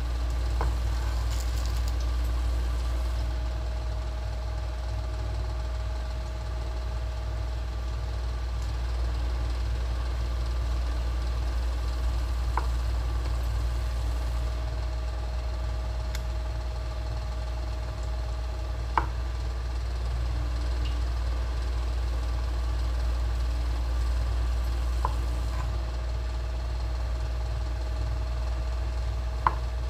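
Kitchen knife slicing through a block of tempeh on a plastic cutting board, with a few sharp taps of the blade on the board, over a steady low background hum.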